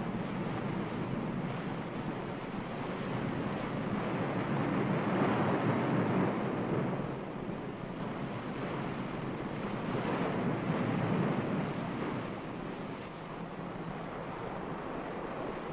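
Ocean surf: a steady rush of waves that swells twice, around five and ten seconds in, and eases between.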